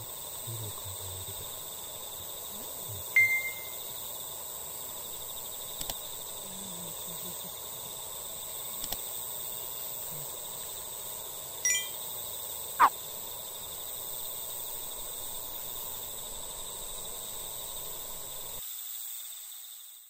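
Quiet evening outdoor ambience: a steady hiss with faint high steady tones. It is broken by a short bright tone about three seconds in, a brief cluster of short tones near twelve seconds, and a quick falling whistle about a second later.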